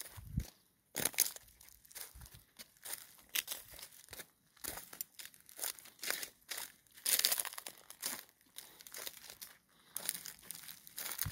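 Close crinkling and rustling handling noise on the phone's microphone, a run of short irregular bursts with a louder stretch about seven seconds in.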